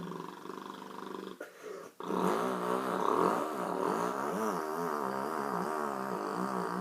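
A person imitating a dirt bike with their voice: a buzzy, engine-like vocal drone that revs, its pitch rising and falling again and again. A couple of short bursts come first, then a long unbroken run of revving from about two seconds in.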